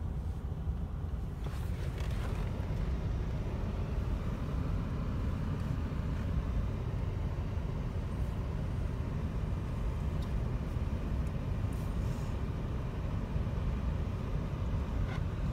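Automatic car wash heard from inside the car: water spraying and streaming over the glass and body with the machinery's steady low rumble, broken by a few brief knocks.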